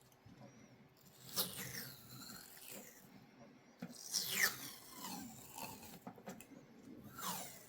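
Cloth wire-harness tape being pulled off the roll and wrapped tightly around a wiring harness: three pulls about three seconds apart, each sliding down in pitch, with light handling noise between them.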